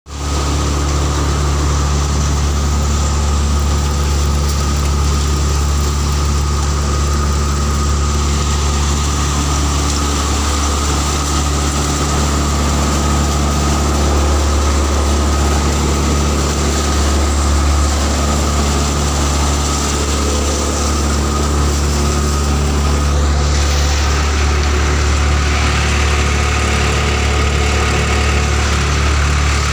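Dashmesh multicrop thresher running steadily during groundnut threshing: a loud, even machine hum with a strong low drone.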